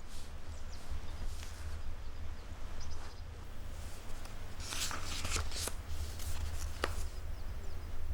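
Rustling and a few sharp clicks, the densest cluster about five seconds in and one more click near seven seconds, over a steady low rumble.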